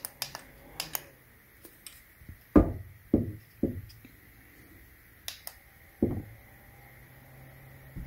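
Small metal desk fan with a brushless motor running with a faint steady hum. Sharp clicks and several dull low thumps come from the fan being handled, the loudest thump about two and a half seconds in.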